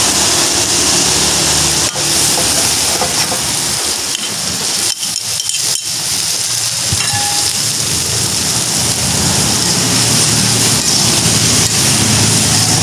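Spice paste and then sliced sausage sizzling in hot oil in a wok, a steady hiss. A few clicks and scrapes of metal tongs against the wok come about two seconds in and again around the middle, as the sausage goes in.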